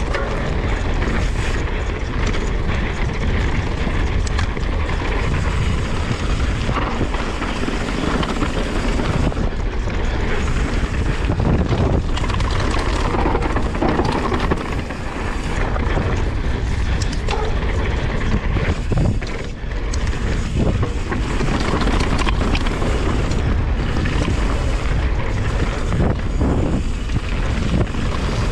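Wind buffeting an action camera's microphone as a Yeti SB150 mountain bike descends a dirt singletrack at speed, with tyres running over the dirt and frequent clicks and knocks from the bike rattling over bumps.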